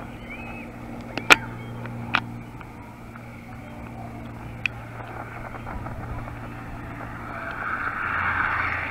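Distant Piper PA-28R-201T Turbo Arrow passing overhead, its turbocharged piston engine and propeller giving a steady low drone. A few sharp clicks break in during the first half, and a hissy swell builds near the end.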